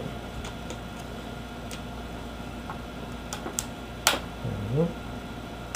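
Plastic screen bezel of a netbook lid snapping into place under finger pressure: a few sharp clicks of its clips, the loudest about four seconds in.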